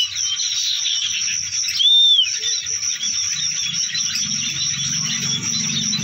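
Small caged songbird twittering softly in rapid chirps, beginning to sing, with a short arched whistle about two seconds in. A steady high-pitched drone runs underneath.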